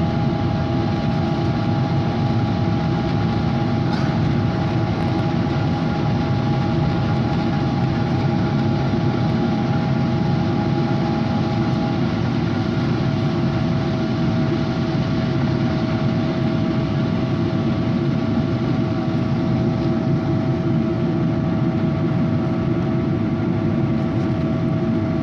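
Boeing 777-200 jet engines running steadily: a constant rumble with a steady droning hum over it. One higher tone in the hum drops out about twelve seconds in.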